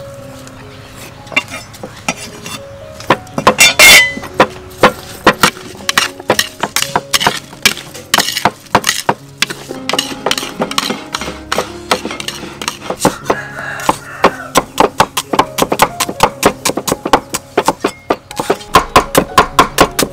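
Kitchen work sounds: spoon and dish clinks, with one loud ringing clink about four seconds in. Near the end a cleaver chops quickly and evenly on a wooden board, slicing shallots. Soft background music runs underneath.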